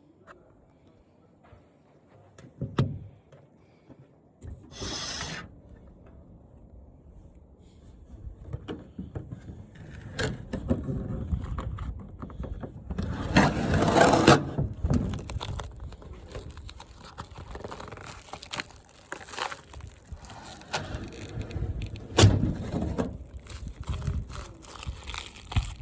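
Hand work on a flat-screen TV being taken apart: parts pulled off and handled, giving irregular knocks, scrapes and clatter. The loudest stretch comes about halfway through, and there is a sharp click near the end.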